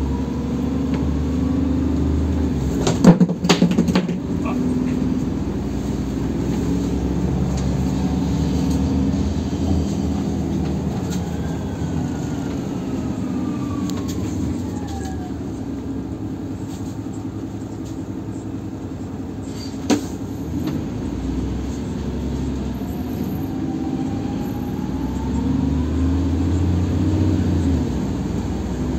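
Solaris Urbino 12 city bus under way, heard from inside the passenger cabin: steady engine and drivetrain rumble with a whine that rises and falls in pitch several times. A burst of loud rattling knocks comes about three seconds in, and a single sharp knock comes about twenty seconds in.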